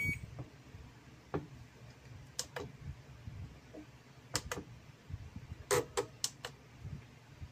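Plastic push buttons of a Radiomaster TX16S radio transmitter's six-position switch clicking as a finger presses them. Sharp clicks, mostly in quick pairs, with a run of four near the end.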